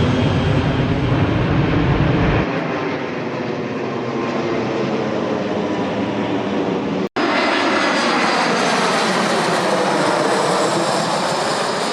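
Airplane engines running loudly, with a deep rumble that falls away about two seconds in. Just past the middle the sound breaks off for an instant and another stretch of engine noise follows, carrying a whine that glides in pitch and some high steady tones.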